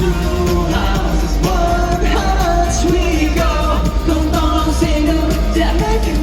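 Pop song performed with singing over a loud, bass-heavy amplified backing.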